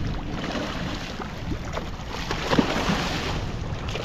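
Hooked mahi-mahi (dolphinfish) thrashing at the surface beside the boat, a run of irregular splashes in churned water, loudest about two and a half seconds in.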